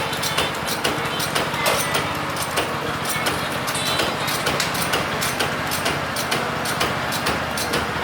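Kubota S1-500HD riding rice transplanter's 7.5 hp four-stroke petrol engine running steadily, with a rapid mechanical clatter from the machine working. The engine note shifts slightly near the end.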